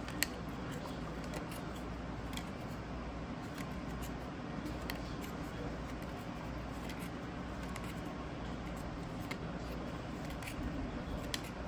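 Topps baseball trading cards slid one by one off a stack held in the hand: soft papery sliding of card on card, with a light click of a card edge every couple of seconds, over a steady low background hum.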